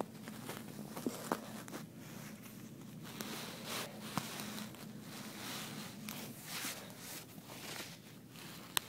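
Handling noise from a handheld recording device being carried about: steady rustling and rubbing of fingers against it, broken by a few sharp clicks, the loudest near the end.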